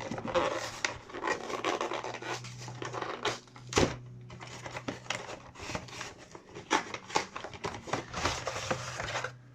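Rustling, scratching and crinkling of a Pokémon card box's packaging being handled and opened by hand, with many small clicks and one sharper click about four seconds in. A steady low hum runs underneath.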